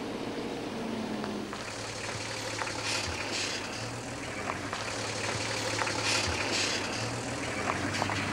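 A four-wheel-drive SUV driving along a dirt track: a steady engine hum under the rushing noise of tyres on loose dirt and gravel, growing a little louder toward the end.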